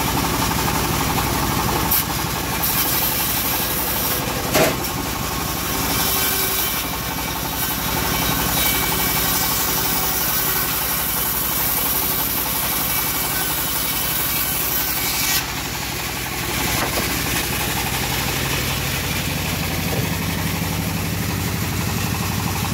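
Homemade bandsaw sawmill running steadily on its engine. A higher hiss of the blade cutting through teak starts about three seconds in and stops abruptly about fifteen seconds in. There is one short knock about four and a half seconds in.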